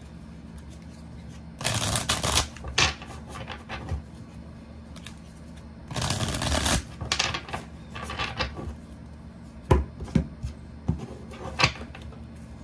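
A deck of tarot cards being shuffled by hand: two bursts of rapid card flutter as the cards are riffled, about two seconds in and again about six seconds in, followed by scattered taps and clicks as the deck is handled and squared.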